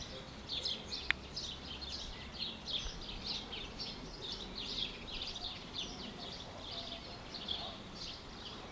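Birds chirping and singing continuously, many short, quick notes overlapping, with one sharp click about a second in.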